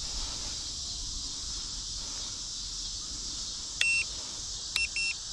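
High electronic beeps from the RC helicopter's electronics: one short beep, then a quick run of shorter beeps about a second later. Crickets chirp steadily underneath.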